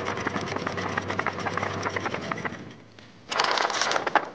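Anchor chain rattling link by link as the Lewmar V3 electric windlass powers it down and out over the bow roller, with a low motor hum underneath. The run stops about two and a half seconds in, and after a short pause a louder, shorter burst of chain noise comes near the end.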